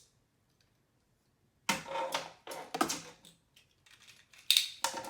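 Hard plastic Beyblade parts clicking and snapping as the tops are taken apart and reassembled into a different mode: quiet at first, then quick runs of clicks, with a sharp click near the end.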